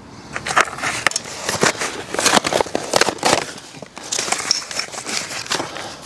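Packing material being pulled off a folding electric bike, crinkling and rustling in a run of irregular scrapes and crackles.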